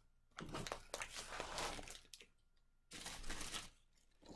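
Packaging crinkling as it is handled and drawn out of a cardboard box, in two stretches: a longer one of about a second and a half, then a shorter one about three seconds in.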